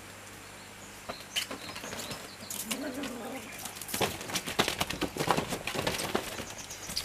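Rustling and scuffling of a fabric-and-mesh pop-up pet playpen as kittens scramble about inside it: a flurry of quick scratchy rustles that grows busier in the second half.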